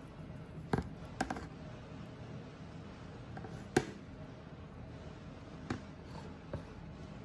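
A handful of short, sharp plastic clicks and knocks as a collapsible plastic-and-silicone water scoop is handled over a plastic basin; the loudest knock comes a little under four seconds in, over a steady low hum.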